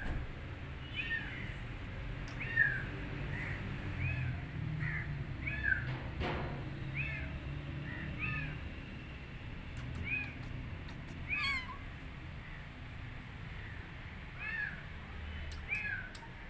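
Kittens mewing over and over: short, high-pitched mews, roughly one or two a second, with a few seconds' lull in the middle.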